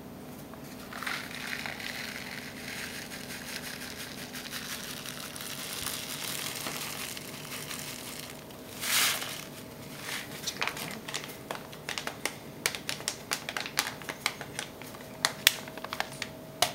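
Calcium chloride flakes being handled and sprinkled into a plastic tub of water: a soft rustling, a brief louder rush about nine seconds in, then a run of irregular sharp crinkling ticks.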